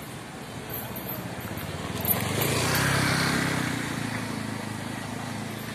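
Small motor scooter passing close by. Its engine grows louder to a peak about three seconds in, then fades as it rides away.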